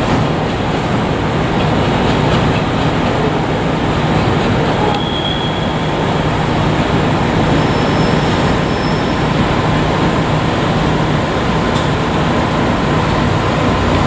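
JR Kyushu 817 series electric multiple unit passing close by: a steady running noise of wheels on rails with a low hum. There are brief high squeals about five seconds in and again about eight seconds in.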